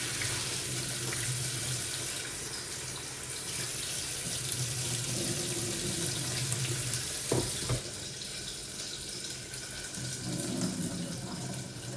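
Kitchen tap running into a sink, a steady rush of water that eases off about eight seconds in, with a couple of light knocks just before.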